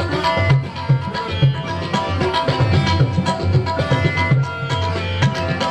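Instrumental music played on a Roland Fantom X6 keyboard, a sustained melody over a fast tabla-style drum rhythm.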